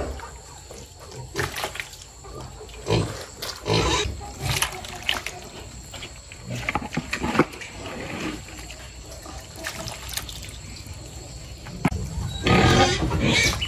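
Pigs grunting at intervals while feeding, with irregular short noises throughout and a louder, noisier stretch near the end.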